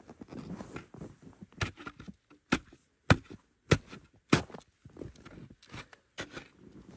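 Metal shovel chopping into hard-packed snow and ice over a beaver trap set: a run of sharp crunching strikes, the loudest coming about every half second between roughly one and a half and four and a half seconds in, with softer crunching between.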